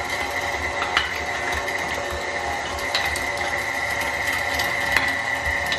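KitchenAid stand mixer running at speed 4 with its meat grinder attachment, grinding cubes of raw beef: a steady mechanical whine with a constant high tone, broken by a few sharp clicks.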